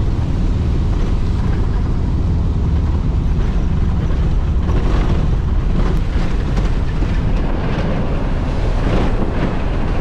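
Volkswagen Kombi van driving on a wet road: a steady low rumble of engine, tyres and wind, with scattered crackles from about halfway through.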